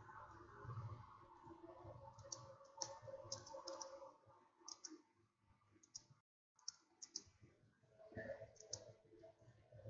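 Faint computer keyboard keystrokes: scattered, irregular clicks over near-silent room tone.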